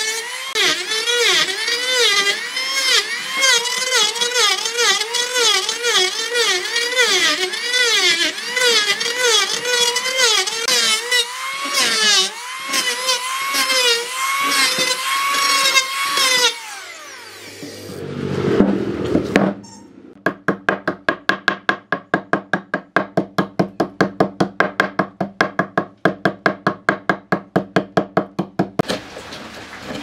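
Electric hand planer cutting redwood, its motor pitch dipping and recovering about twice a second as the blade bites on each pass, then winding down after it is switched off. After a short pause comes a fast, even series of hand chisel strokes, about three a second.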